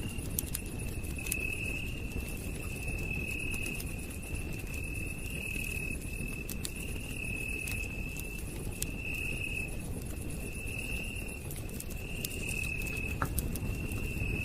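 Crickets trilling in repeated bursts about a second long, one every second or two, with a fainter high-pitched insect buzz, over a campfire crackling with scattered sharp pops and a low steady rush.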